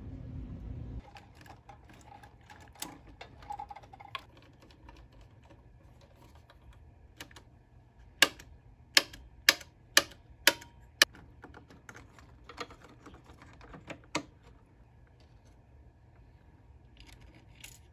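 Front-panel pushbutton switches of a Pioneer SX-1980 receiver being pressed and handled: a run of about six sharp clicks roughly two a second near the middle, with lighter clicks scattered around them. A low rumble stops about a second in.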